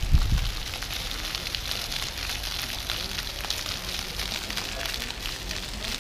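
Water from a paving-level fountain's jets splashing onto wet stone paving, a steady patter of many small drops. A brief low thump right at the start.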